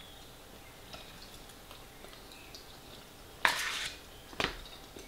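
Metal spoon scraping and scooping in an aluminium foil food tray: faint small clicks at first, then one short loud scrape about three and a half seconds in and a sharp clink about a second later.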